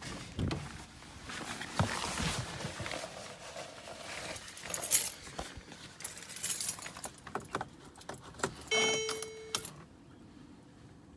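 Car keys jangling among the clicks, knocks and rustle of getting into a 2010 Mercedes-Benz C300. Near the end a single steady electronic chime sounds for about a second as the ignition is switched on, before the engine is started.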